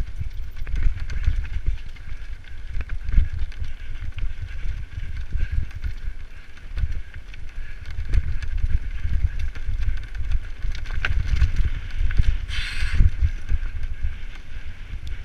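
Mountain bike clattering over a loose rocky track at speed: the tyres crunch on the stones, and the bike knocks and rattles constantly under a low rumble. A brief hiss comes near the end.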